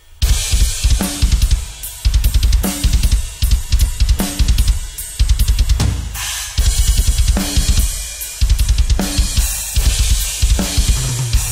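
Pearl Export drum kit with Paiste cymbals played fast through microphones. It starts just after a brief pause, with rapid bass drum strokes driving under snare hits and cymbal crashes in repeated phrases.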